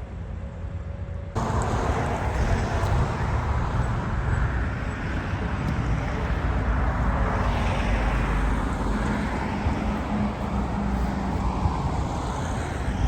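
Steady road and traffic noise of moving vehicles, starting abruptly a little over a second in, with one vehicle swelling past around the middle.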